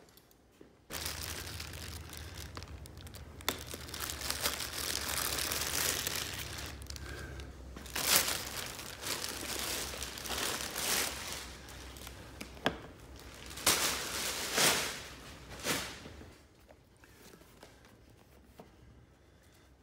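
Packaging being handled and unwrapped, crinkling and tearing. It starts about a second in, with several louder crackles and rips in the second half, then dies away a few seconds before the end.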